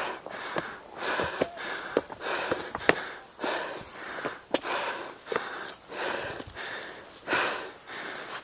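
Heavy, fast breathing of a hiker out of breath from a steep uphill climb, close to the microphone. Each breath in and out comes as a loud rush, about one every second or less.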